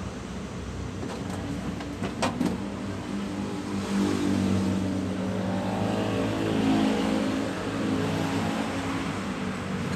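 A motor vehicle's engine running and rising in pitch as it accelerates. A few sharp clicks come about two seconds in.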